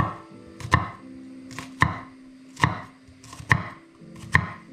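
Chef's knife slicing a red onion and striking a bamboo cutting board: six even chops, a little under a second apart.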